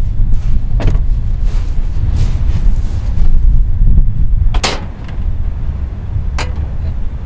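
Jeep Wrangler driving, a loud steady low rumble, with three sharp clicks or knocks about a second in, halfway through and near the end.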